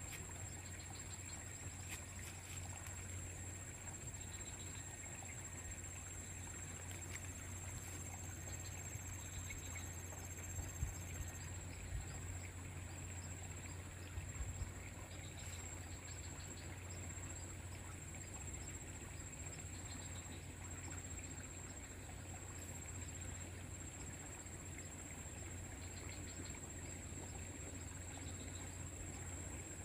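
Steady high-pitched drone of insects, with short faint chirps every few seconds, over a low steady hum; a couple of faint knocks about halfway through.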